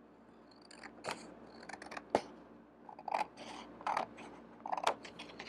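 Scissors cutting a sheet of white paper: a run of short crisp snips, roughly one a second, starting about a second in.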